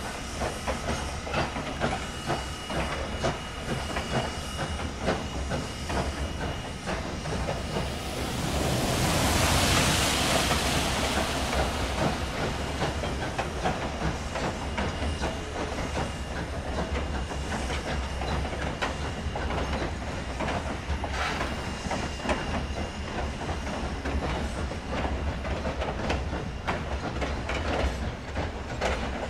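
Steam-hauled passenger train rolling past, its wheels clicking steadily over the rail joints. About eight seconds in, a burst of steam hiss swells up for a few seconds and fades again.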